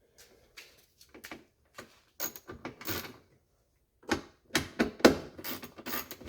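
A tool working 7mm screws out of a tail light housing: irregular clicks and clatter in two bunches, without a steady motor whine.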